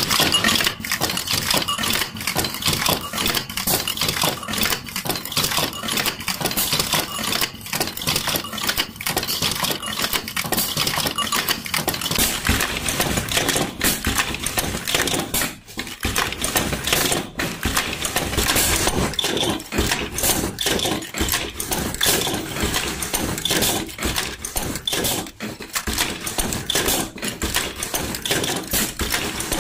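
Automatic ball bearing assembly machine running: a dense, steady clatter of rapid metallic clicks and clinks as steel bearings and fixtures move through the stations.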